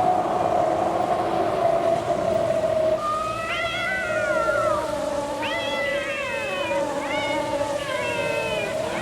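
Cat yowling: four long, drawn-out yowls, each rising then sliding down in pitch, starting about three seconds in. They sit over a steady droning tone.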